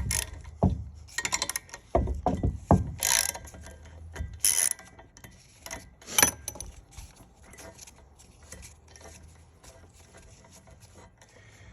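Metal knocks and clinks with short runs of rapid clicking as the parts of a Nathan K5LA train horn are handled, loudest in the first few seconds and then dying down to faint scattered ticks.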